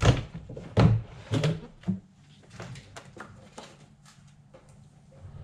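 Outboard engine cowling being unlatched and lifted off: a few loud clunks and knocks in the first two seconds, then lighter clicks and rattles.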